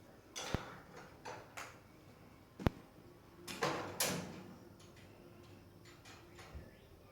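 Handling noises on the cage: two sharp clicks among several short scraping, rustling bursts, the longest about three and a half seconds in.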